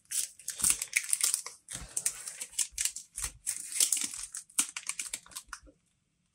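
Clear plastic packaging bag crinkling and rustling in irregular crackly bursts as it is handled and slit open with a hobby knife, pausing briefly near the end.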